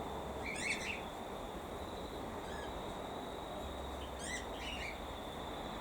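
Cockatiel calls: two brief chirping calls, one about half a second in and another a little after four seconds in.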